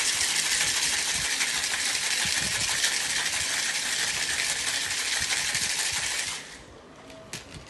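Ice rattling hard inside a Boston shaker, a mixing glass capped with a steel tin, shaken vigorously. The shaking stops about six seconds in, followed by a couple of sharp clicks.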